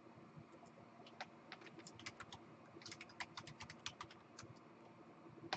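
Faint typing on a computer keyboard: a quick, irregular run of key clicks from about a second in until near the end, over a low room hum.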